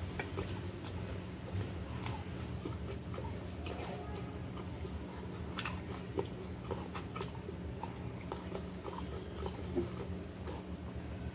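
Close-up chewing of a mouthful of toasted salami sandwich: irregular small crunches, clicks and wet mouth sounds, over a steady low hum.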